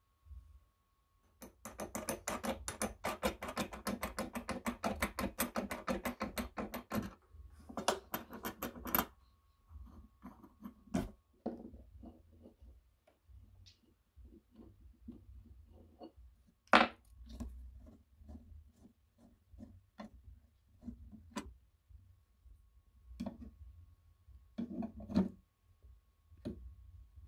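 Hand tools working on an old Peter Pan sewing machine's gears and fittings: a screwdriver and pliers on metal parts. It begins with several seconds of rapid metallic clicking and rasping, then a shorter burst. After that come scattered single clicks and knocks of metal on metal, one sharp click about two-thirds of the way in.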